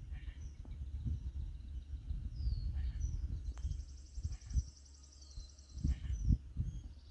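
Birds singing: short high down-slurred whistled notes repeated throughout, with a long high buzzy trill through the middle. Underneath, a steady low rumble with a few soft thumps.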